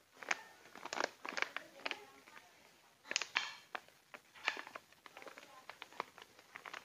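Clear plastic bag of dried root-wood chips crinkling and crackling in short, irregular rustles as it is handled and its tied top is worked open.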